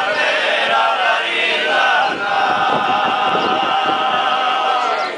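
Sardinian male folk choir singing a trallallera a cappella in close harmony, the voices holding long sustained notes together. The singing eases off near the end.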